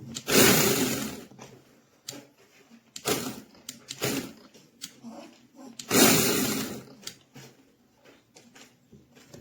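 Cordless brushless mini electric chainsaw run in several short bursts, each starting suddenly and winding down after the trigger is let go. The two loudest bursts come just after the start and about six seconds in.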